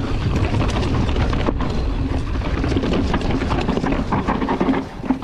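Mountain bike descending a dry dirt trail: tyres rolling over dirt and roots and the bike rattling with many sharp clicks, under a heavy rumble of wind on the chest-mounted camera's microphone.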